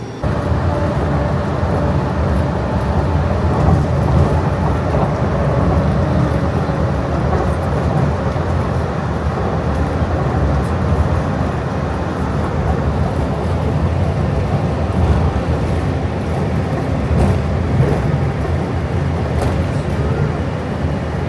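Walt Disney World monorail riding along: a steady low rumble of the train in motion, with a faint steady hum above it.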